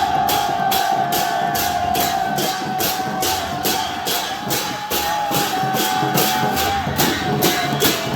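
Processional percussion music for a Lakhe dance, with cymbals clashing in an even beat about two and a half times a second under a long held high note that stops about seven seconds in.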